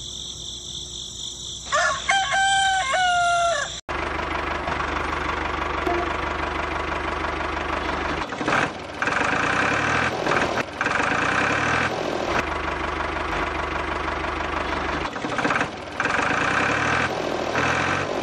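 A rooster crows once, about two seconds in. Then a motor starts running steadily with a low hum and keeps going, dropping out briefly a few times.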